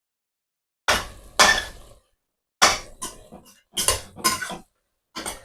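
Cookware clanking: a cooking pot and its lid or a utensil knocked together several times, each knock short with a brief ring, after about a second of dead silence.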